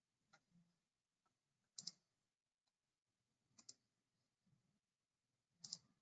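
Faint computer mouse clicks over near silence: three quick double clicks, about two seconds apart.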